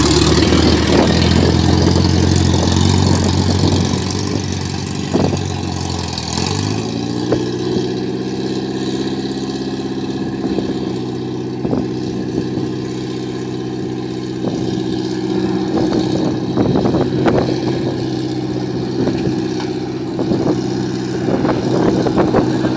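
Older Toyota pickup's engine running as the truck pulls past and drives away: louder at first, its pitch climbs about six or seven seconds in and then holds steady while it moves off.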